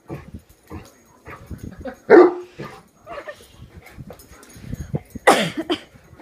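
Young Great Dane barking twice, two loud single barks about two and five seconds in, with softer short noises between them. He is worked up and barking in alarm at a hairbrush lying on the floor.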